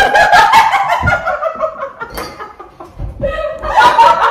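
Young women laughing hard together, high-pitched laughter that eases off about two seconds in and builds again near the end.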